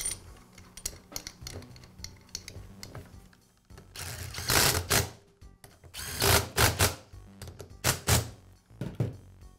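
Bolts being run down into the brass head of a pressure-washer pump with a socket tool, in several short bursts in the second half after some light handling clatter.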